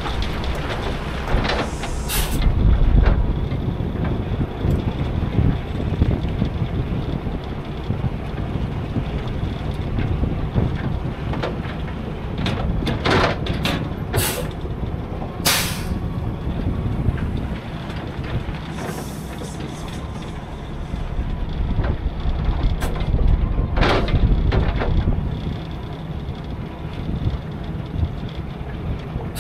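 Semi truck running with a steady low rumble, broken by several short hisses of air from the air brakes.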